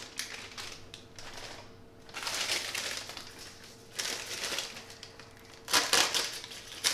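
Plastic bag of dry malt extract crinkling as it is handled and worked open, in irregular rustles with a few sharper, louder crackles near the end.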